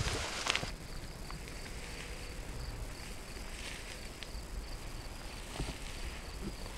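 Footsteps crunching and rustling through brush and dry deadfall, cut off abruptly within the first second. Then a quiet grassland background with a faint, steady, high insect trill and a few soft ticks.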